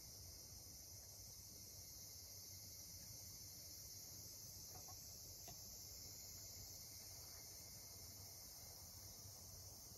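Near silence, with a faint steady high-pitched chorus of crickets and a couple of tiny ticks about halfway through.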